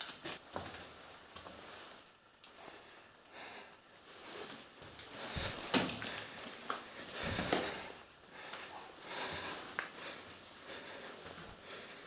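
Scuffs, rustles and scattered clicks of a person moving about with a handheld camera in a small underground concrete room, with a sharp click about six seconds in the loudest.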